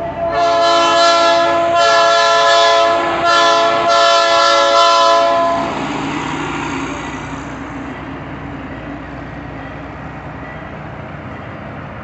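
Locomotive air horn sounding loudly in three blasts, the last one longest, over about five seconds. After that comes the steady rumble of the train's coaches rolling past.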